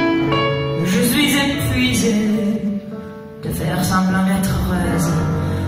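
Live band music with a woman singing a slow ballad into a microphone. The music thins and drops in level briefly a little before the middle, then comes back in.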